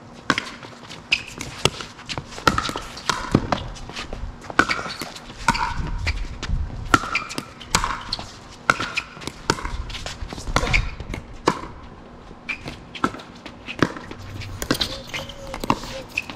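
A doubles pickleball rally: sharp pops of paddles striking the plastic ball and the ball bouncing on the court, about one to two a second, with short squeaks of players' shoes on the court between the hits.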